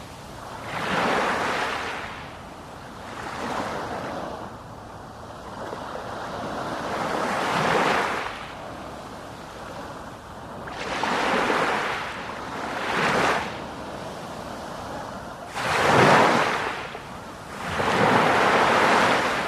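Sea waves breaking and washing up a shore, one swell of surf every two to four seconds, the loudest about sixteen seconds in.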